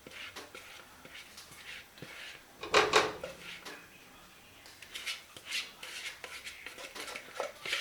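Kitchen handling noises of a pot and utensils: short scrapes, rubs and clinks, with one louder clatter about three seconds in.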